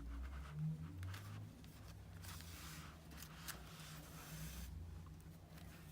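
Faint rustling and scraping strokes, several in a row, as acrylic yarn on a plastic needle is drawn through the folded edge of a latch hook rug canvas in a whip stitch.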